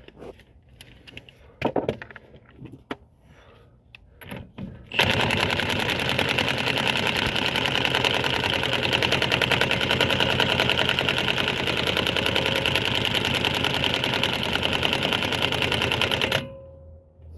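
Big power drill run on the 27 mm CV axle bolt to drive it down toward torque. It starts after a few light clicks and knocks, runs loud and steady with a rapid, even rattle for about eleven seconds, and stops abruptly.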